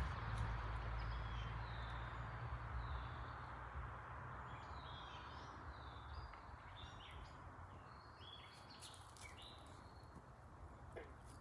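Small birds chirping in short, repeated calls, over a low rumble that fades away during the first few seconds.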